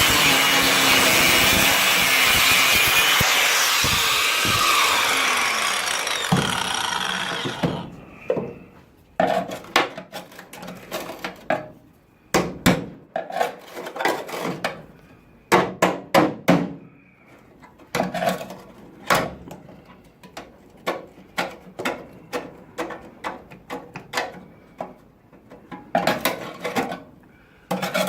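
A power tool, likely an angle grinder, grinding steel, then winding down about seven seconds in. After it stops come irregular hand-worked scraping strokes and clicks on the metal.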